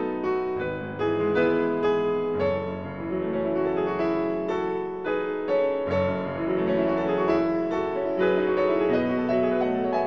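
Piano music.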